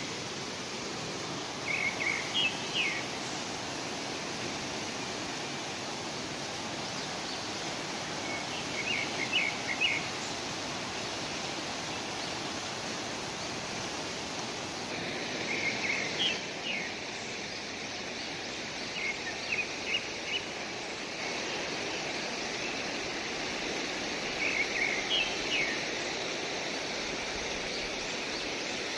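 Steady rushing of a fast river and the water running in an irrigation channel beside it. A bird calls over it about five times, each time a short phrase of a few quick notes.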